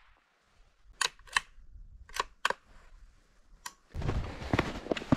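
Sharp clicks, two quick pairs and then a single one, as a gun's action is worked just after a shot at a rabbit; then, from about four seconds in, crunching and rustling of footsteps through deep snow.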